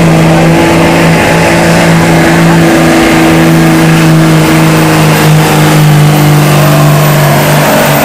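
Diesel pickup engine held at high, steady revs under full load while pulling a sled, its pitch staying level.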